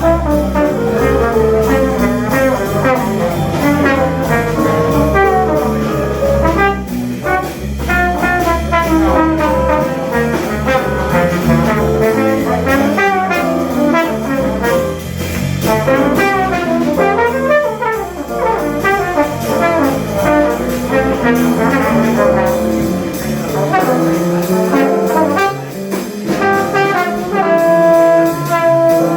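Small swing jazz band of two trombones, trumpet, alto sax, piano, bass guitar and drums playing live, the brass to the fore. Near the end the horns hold a long note.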